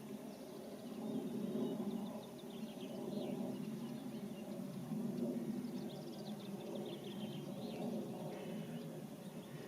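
Small birds chirping in short series of quick high notes, twice, over a steady low outdoor background rumble.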